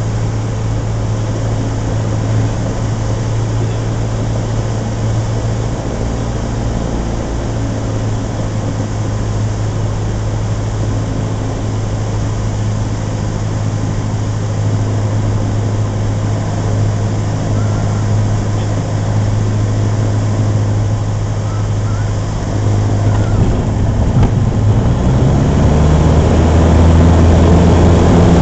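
Cessna 150's four-cylinder Continental O-200 engine and propeller, heard from inside the cabin, running steadily at reduced power on final approach. In the last few seconds, as the plane reaches the runway, the engine note rises and gets louder, typical of power being added for the touch-and-go.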